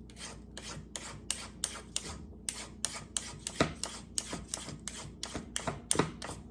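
Vegetable peeler scraping down a raw carrot in quick repeated strokes, about three a second, shaving off ribbons. Two strokes, about halfway through and near the end, come out louder.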